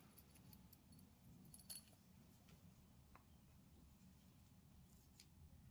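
Near silence: low room tone with a few faint, scattered clicks.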